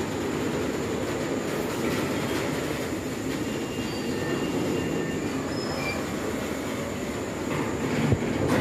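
Loaded open-top freight wagons rolling past on the rails: a steady rumble of wheels on track, with a few brief faint wheel squeals and a sharp knock near the end.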